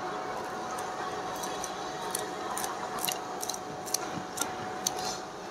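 Chicken frying in hot oil in a karahi: a steady sizzle. From about a second in, irregular sharp clicks and crackles come through.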